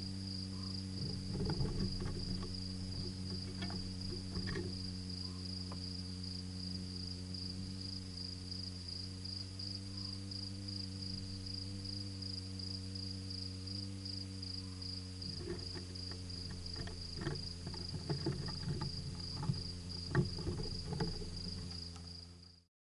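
Dormouse scrabbling and scratching on the microphone housing in short clusters, a couple of seconds in and again from about fifteen seconds in. Behind it a cricket chirps in a steady rapid pulse over a constant low hum. All sound cuts off just before the end.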